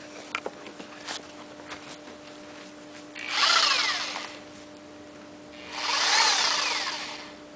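Reciprocating saw run off a small 350-watt inverter, its motor spinning up in two short surges of a second or so, the pitch rising and then falling away each time as it bogs down: the inverter is not strong enough to power it. A few light clicks come before the first surge.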